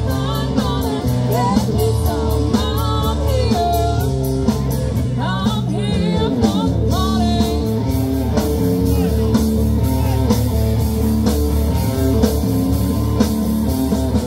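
Live rock band playing amplified through a PA: electric guitar, bass and keyboard over a steady drum beat, with a voice singing.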